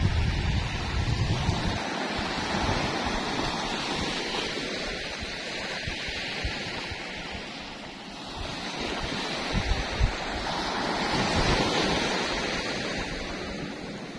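Small sea waves breaking at the shoreline and washing up the beach, the surf swelling and easing in slow surges, with wind buffeting the microphone.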